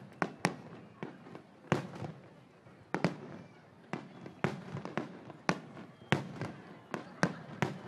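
Fireworks shells bursting in quick, uneven succession: about a dozen sharp bangs, each with a short tail, recorded on a phone's microphone.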